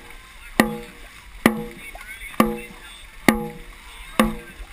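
Dragon boat drum beaten at a steady racing stroke rate, five sharp beats a little under a second apart, each with a short ringing tone, over the wash of paddles in the water.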